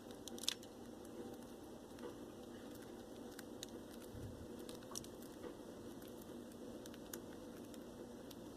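Small birds pecking and cracking seed from a hand: scattered light, irregular clicks over a steady faint background hiss.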